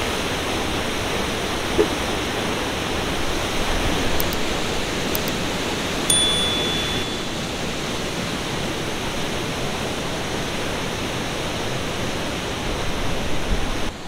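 Waterfall heard up close: a steady, loud rush of falling water from a fast, strong flow. A short high beep sounds about six seconds in.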